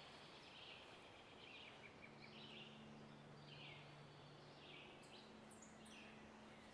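Near silence: faint outdoor ambience with soft, repeated high chirps recurring every second or so.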